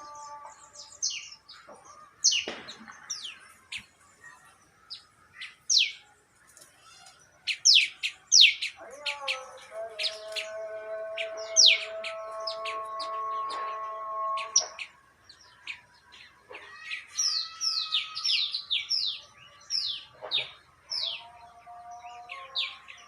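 Birds chirping: many short, sharp calls that sweep quickly downward in pitch, coming in quick runs. About nine seconds in a steady held tone with several pitches comes in under them for several seconds, and it returns near the end.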